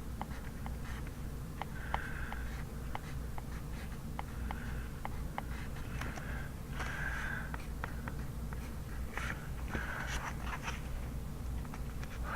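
Pencil writing on paper: short scratchy strokes, several in a row with pauses between, and light taps of the pencil touching down, over a steady low hum.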